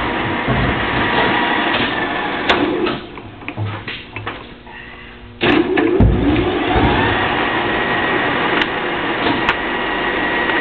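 Mazak engine lathe running, its drive humming and whining. About three seconds in the spindle is stopped and winds down; about five and a half seconds in it starts again suddenly and speeds back up, with a few sharp clicks from the controls later on.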